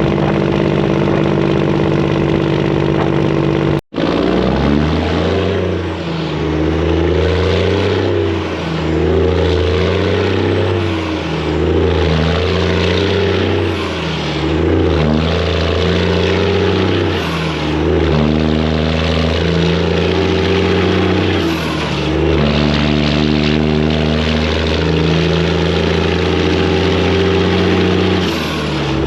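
Semi truck's Detroit diesel engine running loud, steady at first, then after a brief cut about four seconds in its pitch climbs and drops back repeatedly as the truck pulls through its gears. Faint high turbo whistles fall away at several of the drops.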